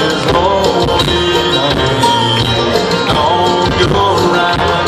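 Loud live country band music, with banjo picked over a steady bass line.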